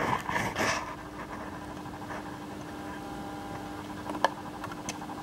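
Faint handling noise and a few sharp clicks as hands work at the top of the cylinder head, over a steady low hum.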